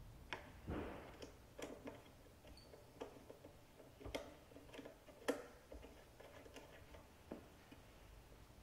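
Irregular metal clicks and ticks of a hex key turning the head screws of an Infaco F3015 electric pruning shear, about a dozen in all, the loudest about five seconds in.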